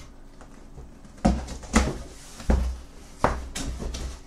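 Cardboard shipping box being opened by hand: its flaps pulled back and handled, giving about five short thumps and scrapes of cardboard from about a second in.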